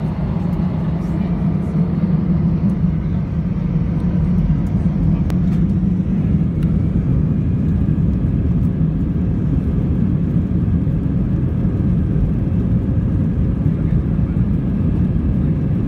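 Airbus A320 jet engines and airflow heard inside the cabin during taxi: a steady low hum over an even rushing noise, with a few faint clicks.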